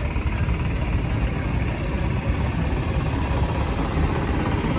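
Drag racing car engine running with a steady low rumble.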